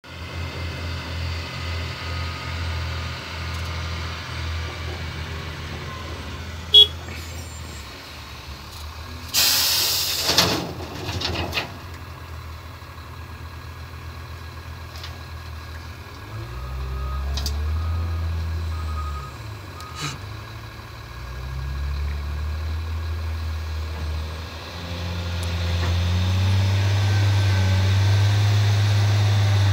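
Caterpillar 950H wheel loader's six-cylinder diesel engine running under load, its pitch rising and falling as it works. A loud rush of noise lasts about two seconds roughly a third of the way in, and a backup alarm beeps in the second half.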